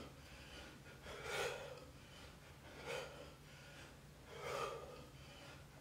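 A man's hard breathing from exertion during sit-ups: three faint, breathy exhalations about a second and a half apart, one with each rep.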